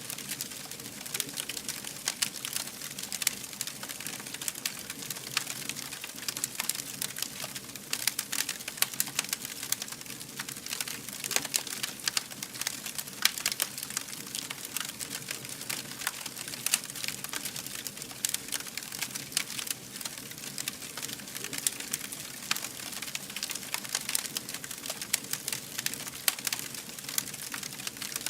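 Fire burning and crackling: a steady hiss with dense, irregular sharp pops and snaps throughout.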